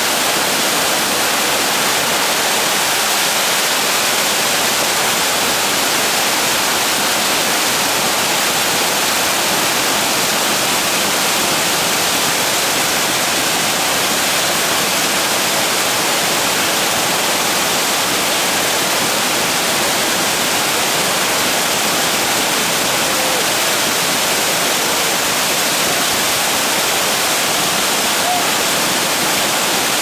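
Waterfall cascading down a sloping rock face, a loud, steady rush of white water close by.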